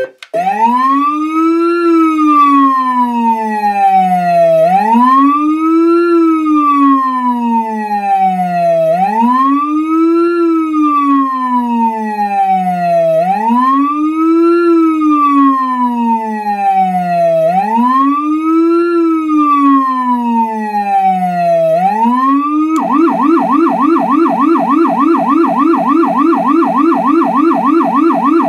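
Federal Signal PA300 electronic siren sounding its wail tone, a slow rise and fall about every four seconds, then switched about 23 seconds in to the fast yelp.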